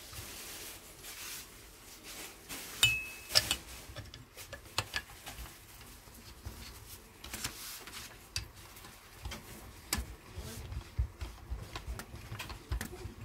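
Metal air rifle parts being handled on a workbench: scattered clicks and clinks, with two sharper metallic clinks about three seconds in, the first leaving a brief ring. Then small taps and rubbing as a black tube is slid over the barrel and screwed onto its thread by hand.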